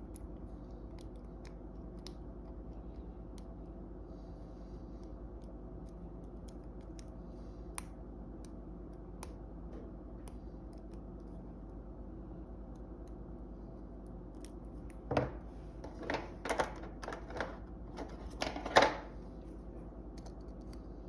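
Lock picks working in the keyway of a Master Lock No. 3 laminated steel padlock: faint metallic ticks, then a run of louder clicks and scrapes from about fifteen seconds in, over a steady low hum.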